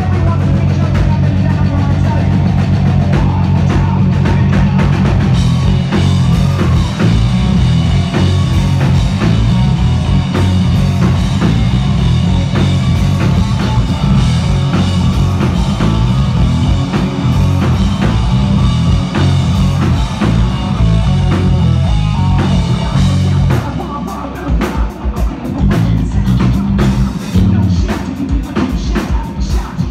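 Rock band playing live at full volume: electric guitar, bass guitar and drum kit, with a heavy, dense low end. Near the end the low end drops back for a few seconds and the drum hits stand out more.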